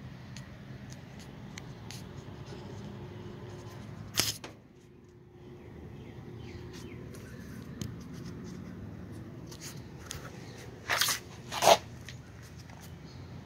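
Steady low background rumble, broken by a few brief scrapes or knocks: one about four seconds in and two louder ones close together near the end.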